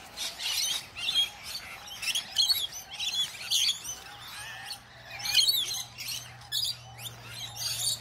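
A flock of rainbow lorikeets calling, with many short, high screeching and chattering calls overlapping irregularly.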